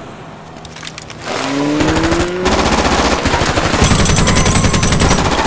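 Turret-mounted machine gun firing long, sustained automatic bursts, breaking out about two and a half seconds in. Just before it, a car engine revs up with a rising note.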